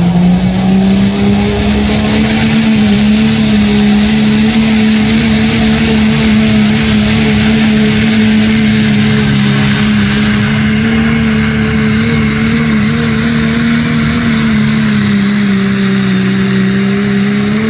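Modified diesel 4x4 pickup engine at full throttle pulling a weight-transfer sled. The engine note climbs over the first second or two, then holds high and steady under load with a faint high whine above it, and drops off right at the end as the pull finishes.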